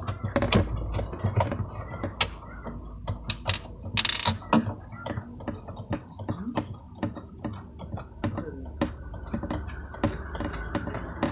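Irregular clicks, knocks and small metallic rattles of hand tools and fridge parts being handled while screws are taken out, with a short scraping hiss about four seconds in.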